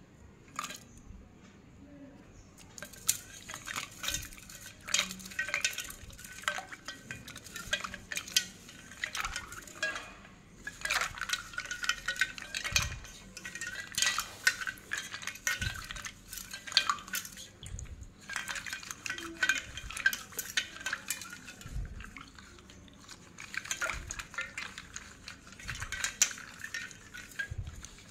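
Slate pencils clicking and clinking against each other and a steel bowl as hands stir and rub them in water, a dense run of irregular clatter after a quieter first few seconds.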